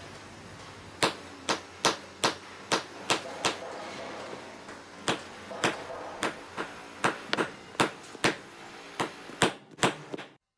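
A series of sharp knocks, about two a second with a short pause midway, each with a brief ringing tail.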